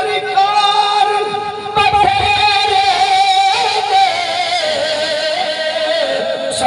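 A man's voice singing one long held note into a microphone, wavering slightly, then sliding lower about halfway through and carrying on.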